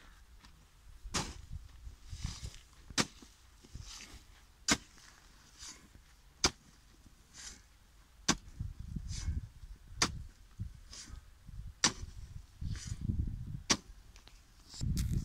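A long-handled digging hoe striking dry soil about every two seconds, eight strokes in all. Each stroke is a sharp crack followed by a brief hiss of loosened earth, with low rumbles in between.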